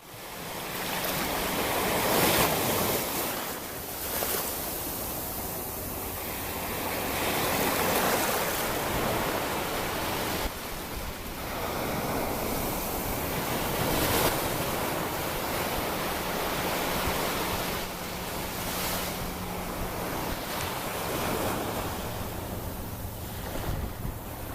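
Ocean surf: waves breaking and washing in, the roar swelling and easing every few seconds.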